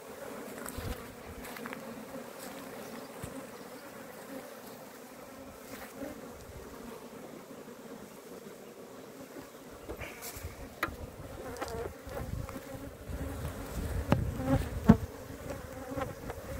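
A colony of Italian honey bees humming steadily over the exposed top bars of an open hive. In the second half, low rumbling noise and a few sharp knocks join the hum, the loudest knock about fifteen seconds in.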